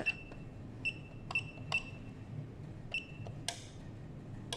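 Wireless garage door keypad beeping as a PIN code is keyed in: five short high beeps, each with a button click, then a louder click with no beep about three and a half seconds in.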